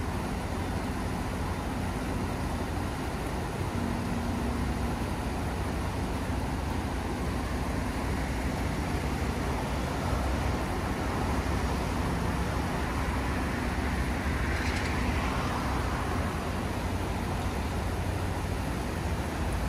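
Steady low engine rumble with a faint hum, from heavy machinery or vehicles at work. A short hiss rises about three quarters of the way through.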